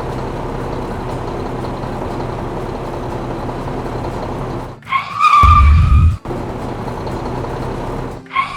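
A vehicle engine runs steadily. About five seconds in, a tyre screech sounds together with a loud, heavy low thump, and a second screech starts near the end.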